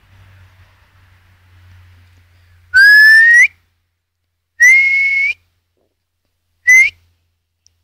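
A person whistling three times, loud and close to the microphone: a rising whistle, a steady one about a second later, then a short one, calling a dog back.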